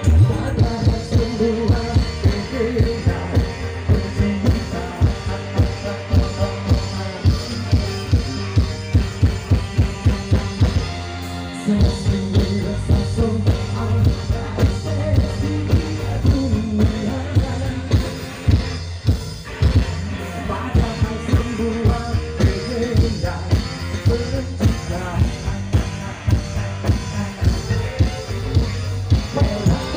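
Live band playing: a male singer over keyboard, electric guitar and drums with a steady beat.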